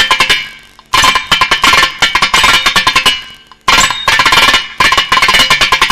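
Thavil drum solo: fast runs of sharp, cracking strokes struck with capped fingers on the right head. The runs come in phrases of about two seconds with short breaks, one starting about a second in and another near four seconds.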